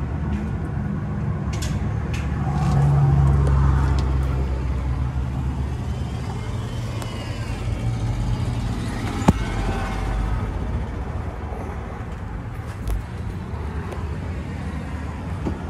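Old small truck's engine running with a steady low hum that swells briefly about three seconds in; a sharp click about nine seconds in.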